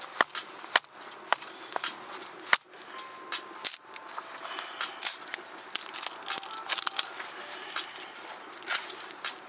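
Wood campfire crackling with many irregular sharp pops and snaps, in the early stage of getting the fire going.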